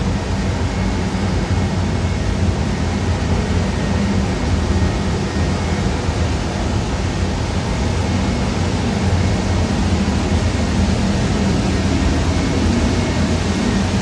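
Stainless steel conveyor-type microwave sterilization machine running: a steady low hum under an even rush of fan and ventilation noise, with a faint high whine that comes and goes.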